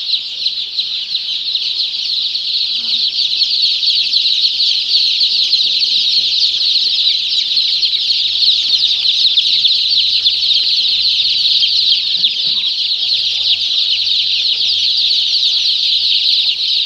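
A large flock of young Sonali chickens in a brooding house peeping and cheeping all together, a loud, unbroken high-pitched chatter of many birds.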